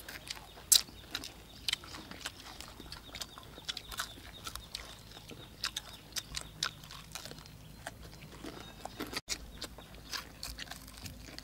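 Several people eating crispy fried chicken legs: irregular crunches, bites and wet chewing and lip-smacking sounds, one after another.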